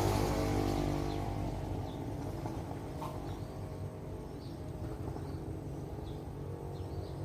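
A low engine hum fades away over the first couple of seconds, and small birds chirp briefly now and then over a steady outdoor background.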